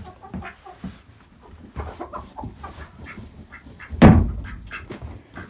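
Chickens clucking and chattering, with one loud thump about four seconds in, the feed container being knocked against wood to empty out the fermented feed.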